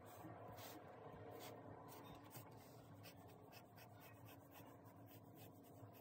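Pencil drawing on sketchbook paper: faint, short scratchy strokes in irregular runs, coming quicker after about three seconds.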